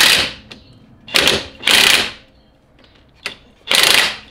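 Cordless impact wrench hammering in four short bursts on a 16 mm control-arm pinch bolt, breaking it loose.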